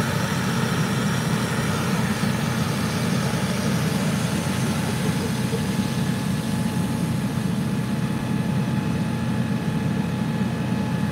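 Fire engine's diesel engine running at a steady, even speed while pumping water to its hose lines, a low rumble with a faint steady whine above it.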